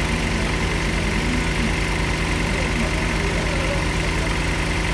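Engine of a trailer-mounted borehole drilling rig running steadily, with an even low firing rhythm.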